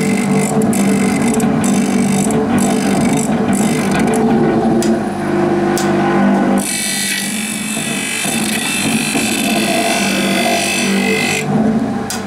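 Electric blade-sharpening grinder for wooden stick-making blades, running with a steady motor hum and scattered clicks from the hand-wheel feed. From a little past halfway, the abrasive wheel grinds against the steel blade with a high hiss for about five seconds, then eases off near the end.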